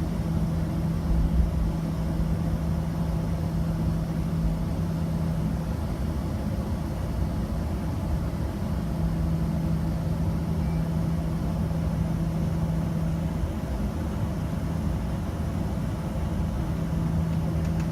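Steady low rumble of airliner cabin noise, with a low hum that drops out twice and comes back.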